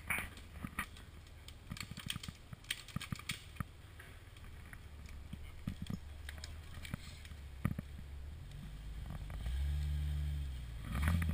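Jeep engine running at low revs as it crawls over brush, with scattered sharp cracks of branches in the first few seconds. From about two-thirds of the way in, the engine revs up and runs louder at higher, stepping pitch.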